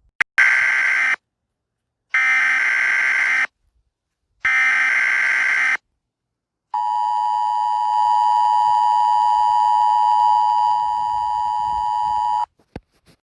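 NOAA Weather Radio emergency alert: three short bursts of warbling digital SAME header tones, then a single steady, high alarm tone (the 1050 Hz warning alert tone) held for about six seconds. Together they signal the start of a tornado warning broadcast.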